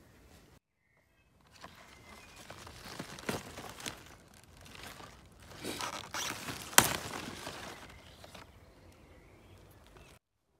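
Broccoli plant leaves rustling as side-shoot stems are picked by hand, with a few crisp snaps. The loudest is a sharp crack about two-thirds of the way through.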